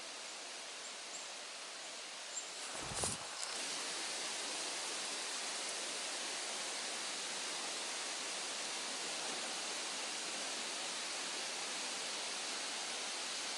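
Steady hissing outdoor background noise with no calls or voices. A brief knock about three seconds in, after which the hiss is louder.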